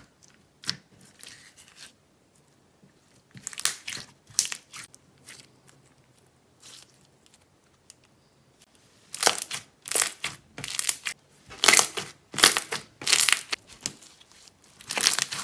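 Slime being squeezed, stretched and pressed by hand, giving crackly popping and crunching noises in bursts. They come sparsely at first, then louder and much more often from about nine seconds in.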